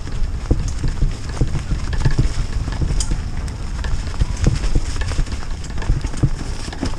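Mountain bike riding fast down a leaf-covered dirt trail: tyres running over leaves, roots and rocks, with frequent irregular knocks and rattles from the bike over a steady low rumble.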